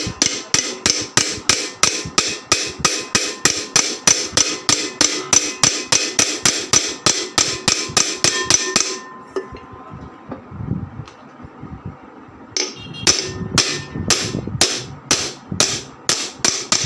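A hammer tapping a ceiling fan's cover into place over its bearing. It makes a rapid run of even strikes at about four a second, stops for a few seconds, then goes on at about three a second until the cover is seated.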